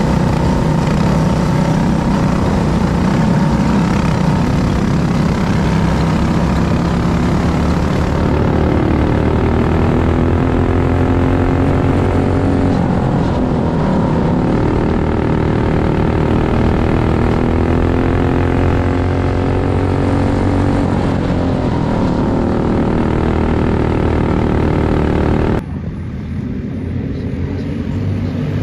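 Racing kart engine running hard, heard close up from on board. Its pitch dips and climbs back through a turn around the middle. About three seconds before the end it switches abruptly to the quieter drone of a pack of karts circling at a distance.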